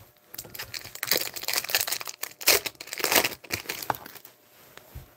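Foil wrapper of a hockey card pack crinkling and tearing as it is ripped open by hand, in irregular crackly bursts that die away after about four seconds.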